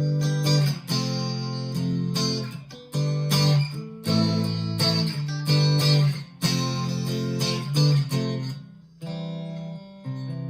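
Clean electric guitar strumming a run of chords, about one a second, ending on a chord left to ring. It is a PRS SE Standard 24 in the middle pickup position with its humbuckers coil-split, a setting called brighter.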